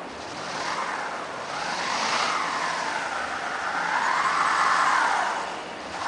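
A Ford Crown Victoria taxi's rear wheels spinning in deep snow as the car tries for grip: a whine that rises and falls about three times with the revs, loudest near the end.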